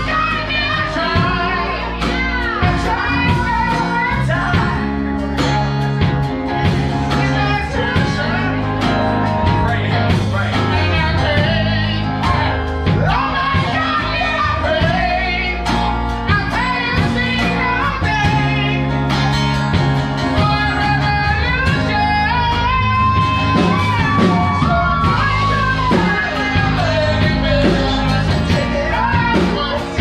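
Live band playing amplified music: electric guitars and drums under a lead singer, whose long held notes come through above the band.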